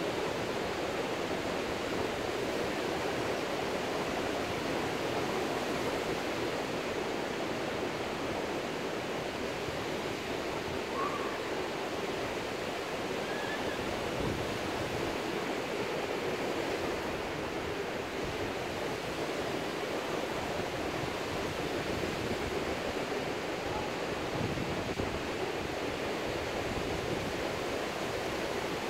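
Ocean surf breaking on a sandy beach: a steady, unbroken wash of waves.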